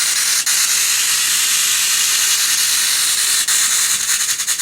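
Steady, loud static hiss, broken by brief dropouts: once near the start, once past the middle, and a quick flutter of them near the end.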